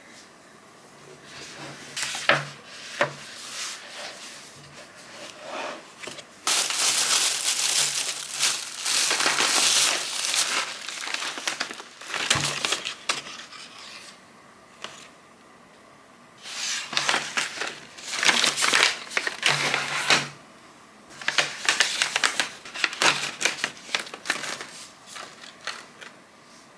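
Crinkling and rustling of plastic almond snack pouches being handled and opened, in three bouts of several seconds each, the longest and loudest near the middle, with a few sharp clicks before them.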